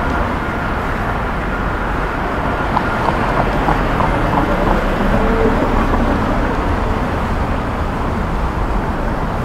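Steady city street traffic noise with a low rumble from passing cars, and a few faint ticks about three to four seconds in.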